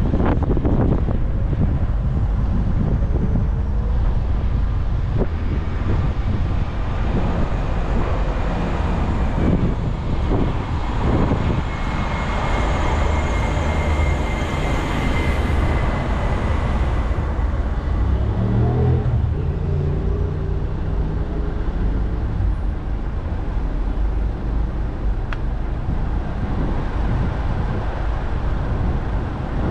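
Road traffic passing, over a steady low wind rumble on the microphone. About two-thirds of the way through, one engine note rises in pitch.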